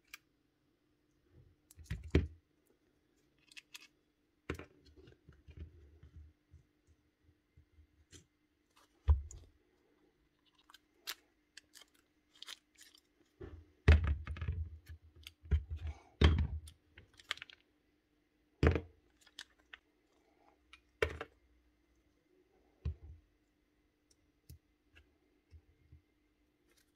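Scattered clicks, taps and knocks of a cordless drill's plastic housing and gearbox parts being handled and set down while the drill is taken apart. The busiest run of knocks comes a little past halfway. A faint steady hum sits behind it all.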